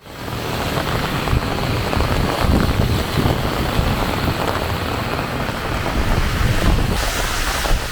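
Heavy rain falling steadily, with wind buffeting the microphone. About seven seconds in the sound shifts to a brighter, hissier rush of rain.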